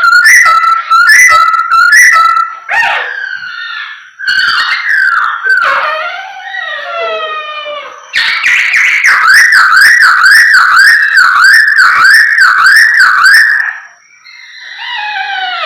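Poksay hongkong (a laughingthrush) singing loudly in varied whistled phrases: a run of repeated rising notes, then slurred falling phrases, then a long fast series of wavering notes about two to three a second, a short pause, and falling phrases again.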